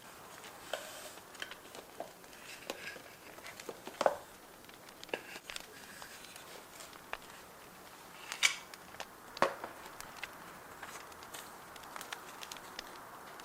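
Journaling paper sounds, with irregular taps, rustles and crinkles of paper being handled, over a faint steady bonfire crackle. Several sharper clicks stand out, the loudest about four seconds in and twice more near the middle.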